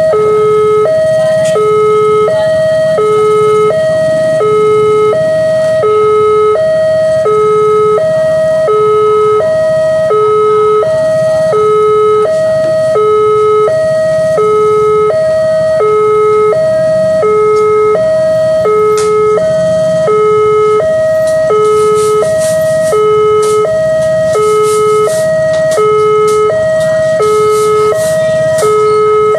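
Railroad crossing warning alarm sounding a steady two-tone electronic chime, alternating evenly between a higher and a lower note about every two-thirds of a second. It signals an approaching train while the crossing barrier is down.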